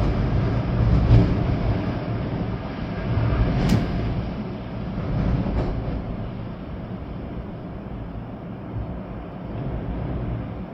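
Storm wind gusting, with a low rumble from the gusts and a hiss of rain. The wind is strong in the first couple of seconds, eases toward the middle and picks up again near the end, with a few short sharp ticks, one of them a little before four seconds in.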